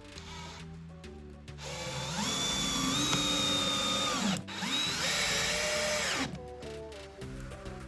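Electric drill run in two bursts over background music. The motor whines up to speed for about three seconds, stops for a moment, then runs again for nearly two seconds before winding down.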